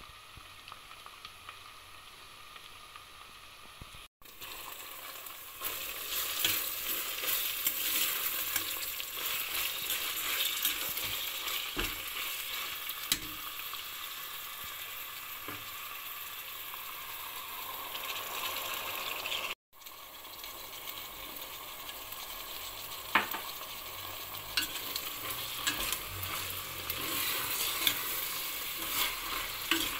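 Chopped onions and vegetables sizzling in hot oil in a stainless steel pot, with a metal spoon stirring and now and then clicking against the pot. The sizzle is quieter for the first few seconds and louder after about four seconds.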